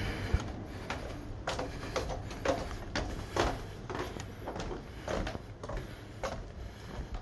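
Footsteps on wooden planks, a knock about every half second, over a low steady rumble.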